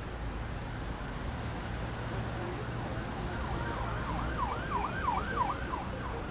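A siren wailing in a rapid up-and-down warble, about two sweeps a second, starting about halfway in and stopping near the end, over a steady low traffic-like rumble.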